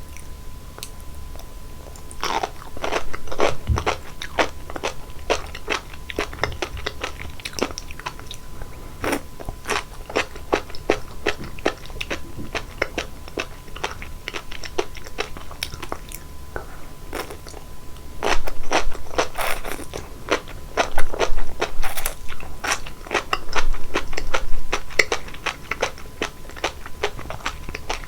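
Sea grapes bitten and chewed close to the microphone: quick crisp pops and crunches as the small seaweed beads burst. The pops come in denser runs about two seconds in and again from about eighteen seconds.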